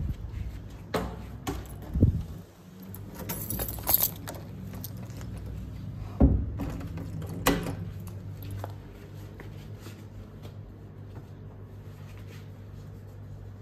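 A bunch of keys on a keyring jangling as a small tote bag is handled and hung on a doorknob, with several knocks and thumps along the way. It quietens after about nine seconds.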